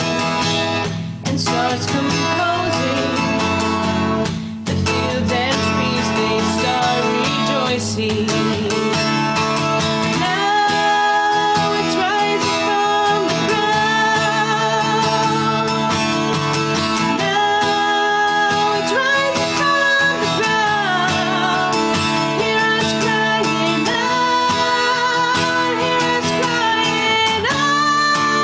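Worship song: strummed acoustic guitar accompanying a woman singing. The sung melody becomes prominent about ten seconds in.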